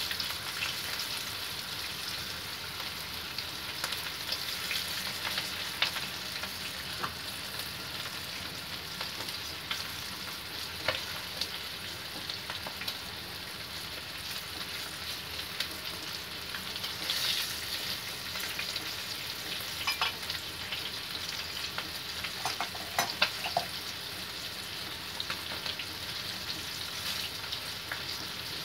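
Breaded pieces frying in hot oil in a wok, a steady sizzle with scattered sharper crackles and pops.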